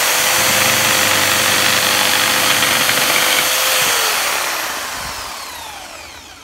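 Corded jigsaw cutting through a wooden board, its motor running steadily at one pitch. About four seconds in the trigger is released, and the motor winds down with a falling pitch as the blade slows to a stop.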